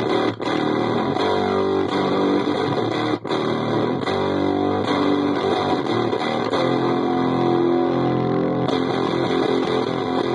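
Electric guitar played through a breadboard prototype fuzz pedal in its boost mode, into a clean JCM-style amp: continuous fuzzy, distorted playing with two brief breaks, about half a second and three seconds in.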